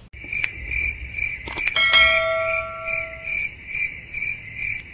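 End-card sound effects for an animated subscribe button: a couple of clicks and a bright bell ding about two seconds in that rings on and fades. Underneath, a high chirping repeats about twice a second.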